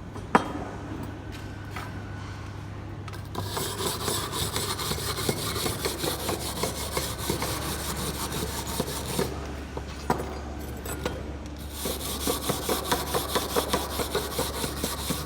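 A hand tool scraping back and forth on metal in quick strokes, about three a second, in two runs with a short pause between, after one sharp knock near the start. A steady low hum lies underneath.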